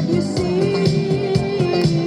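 Rock band playing an instrumental passage: a steady drum beat with cymbal hits under a long held lead note that wavers slightly in pitch.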